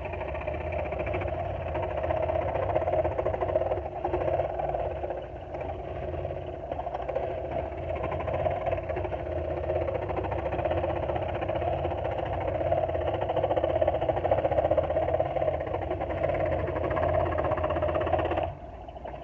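Porter-Cable scroll saw running steadily, its reciprocating blade cutting through a thin wooden sheet as the piece is turned around the pattern. The sound cuts off sharply near the end.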